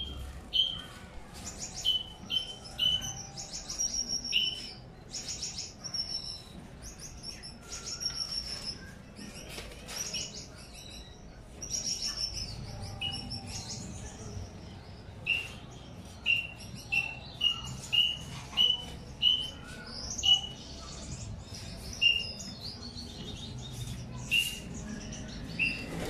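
Small aviary finches, Gouldian finches among them, chirping and twittering: a stream of short high chirps, often less than a second apart, mixed with higher, busier calls.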